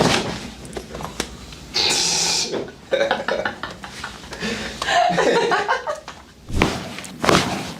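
Short wordless vocal sounds and a breathy exhale from a person on the adjusting table, then two sharp cracks near the end: joints cracking during a chiropractic adjustment, a good release.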